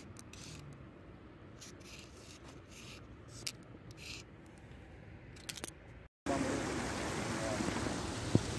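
Uni paint marker scratching in short strokes on rough concrete as a tag is drawn. About six seconds in, after a cut, a steady, louder outdoor rushing noise takes over.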